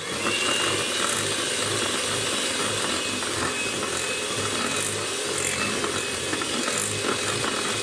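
Electric hand mixer running steadily at an even speed, its beaters working thick butter icing with Milo powder in a glass bowl, with a faint steady whine from the motor.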